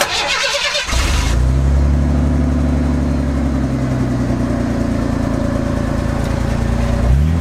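1980s Ford F-150's straight-six engine idling steadily, heard at its tailpipe, after a brief rushing noise in the first second. Its pitch dips and rises again just before the end.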